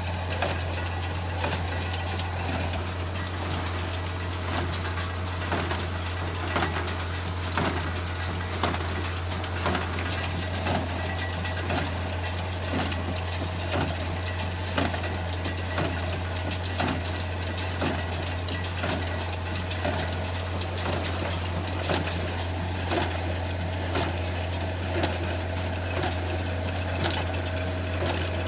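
Tractor and small square baler running steadily. The engine drones evenly under the baler's regular mechanical knocking, about once a second.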